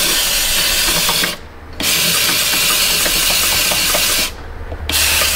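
Air-pressurized canister undercoating spray gun hissing as it fogs Fluid Film oil into a truck's front fender cavity. It runs in three long blasts, with short breaks about a second and a half in and again about four and a half seconds in.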